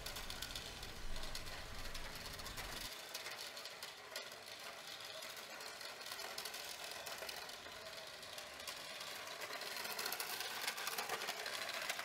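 Toy radio-control car's small electric drive motor running and the car rattling as it bounces over an uneven roof surface, faint and steady, getting a little louder near the end.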